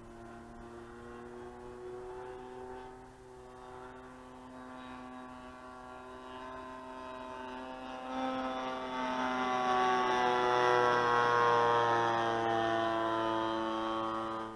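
DLE 30 single-cylinder two-stroke gas engine on a radio-controlled Cub model, running in flight. It is quieter at first, grows louder from about eight seconds in as the plane comes closer, and its pitch slides down as it passes.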